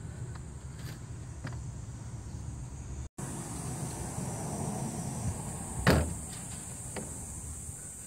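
Hands handling parts in a car's engine bay while hoses and wiring connectors are pulled off: a single short, dull knock about six seconds in, over a steady background hiss.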